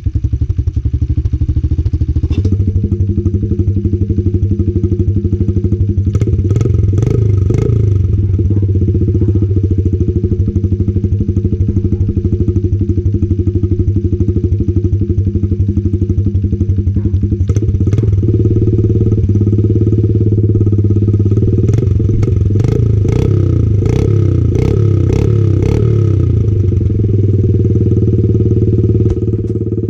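Honda XR70R's 70cc four-stroke single-cylinder engine running, its exhaust loud and steady. The engine is revved in wavering bursts about six seconds in and again from about twenty-one to twenty-six seconds, with sharp clicks during the revving.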